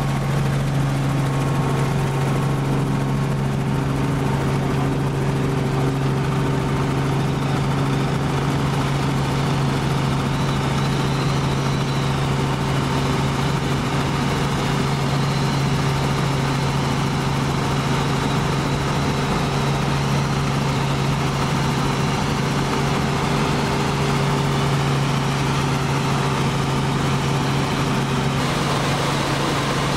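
Robinson R44 Astro helicopter, its six-cylinder Lycoming piston engine and rotor running steadily in flight, heard from inside the cabin as an even drone with a strong low hum.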